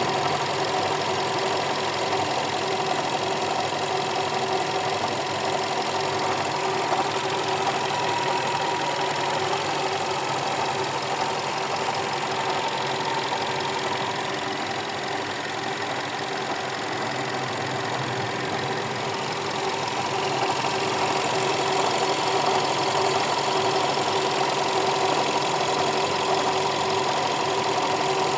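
Turbocharged TSI petrol engine idling steadily. The owner hears extraneous noises in it that he suspects are abnormal.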